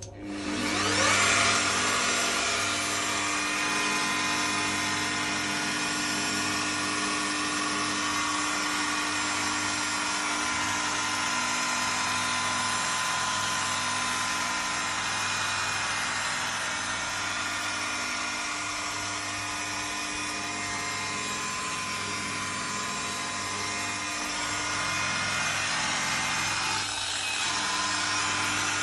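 Electric rotary polisher spinning up, rising in pitch, then running steadily with a whine as its pad buffs the chrome engine inlet lip of a Cessna Citation XLS.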